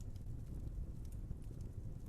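Wood fire burning with a steady low rumble and scattered small, sharp crackles.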